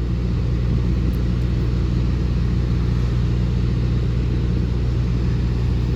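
Diesel engine idling with a steady, even low drone.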